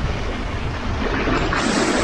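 Sea waves washing on the shore in a steady rush of surf, with one wave swelling louder near the end.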